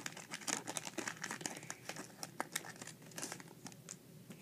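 Foil booster-pack wrapper crinkling as it is torn open and the cards are drawn out: a quick run of small crackles that thins out near the end.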